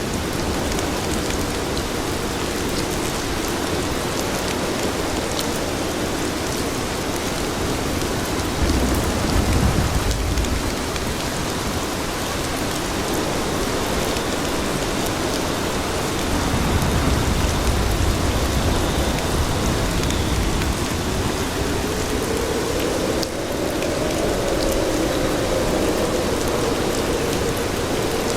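Steady, heavy rain falling on pavement, an even hiss throughout. A low rumble swells up twice, once briefly about a third of the way in and once for several seconds past the middle.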